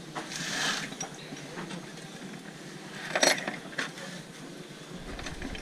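Metal engine valve-train parts, pushrods and rocker arms, clinking and rattling as they are handled in a plastic bucket, with a couple of sharp clinks about three seconds in.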